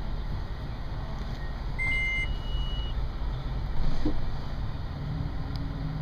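Steady low rumble of a Toyota FJ Cruiser's 4.0 L V6 engine and drivetrain, heard from inside the cabin, with a short two-tone electronic beep about two seconds in.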